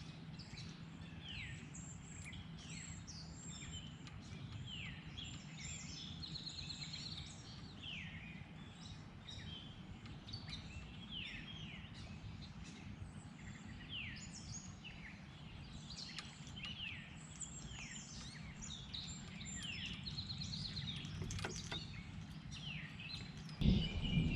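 Songbirds singing: many quick chirps that sweep downward in pitch, repeated throughout over a steady low background rush. A louder low rumbling noise starts just before the end.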